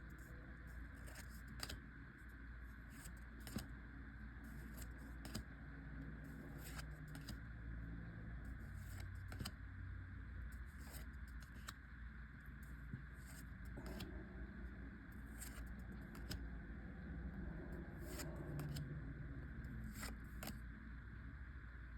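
Faint scattered clicks and taps of Pokémon trading cards being handled and flipped through, over a steady low hum.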